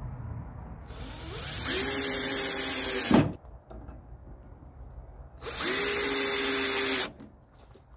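Cordless drill running in two bursts of about one and a half seconds each, spinning up to a steady whine and stopping abruptly, as its bit works through a steel corner bracket into a treated 2x4.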